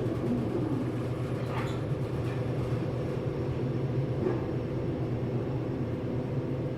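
KONE machine-room-less traction elevator car travelling down, heard from inside the cab: a steady hum and rumble of the ride.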